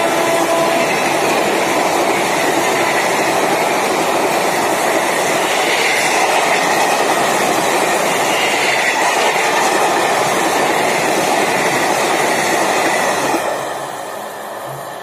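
The coaches of the Mahanagri Express rush past at speed close by with a steady loud rumble and clickety-clack of wheels on rail. A held horn note ends about a second in. The noise drops away sharply near the end as the last coach goes by.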